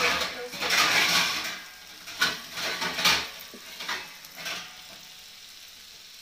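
A metal ladle stirring and scraping okra fry around a metal kadai, heard as a series of scraping strokes over the frying sizzle. The strokes stop about four and a half seconds in, leaving a faint steady sizzle as the okra keeps cooking in its masala.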